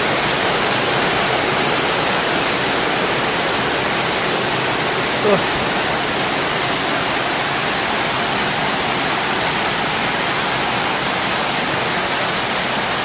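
Heavy rain pouring steadily, a loud, even hiss with no letup, with one brief short sound about five seconds in.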